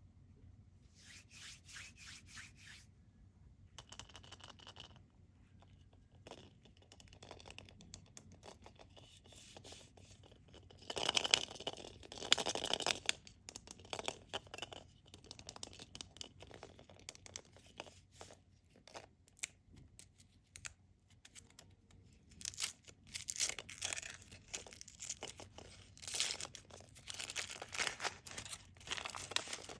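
Foil wrapper of a Kinder Surprise chocolate egg being torn open and crinkled, with rubbing and scratching in irregular bursts. The loudest tearing comes about eleven seconds in and again in the last third.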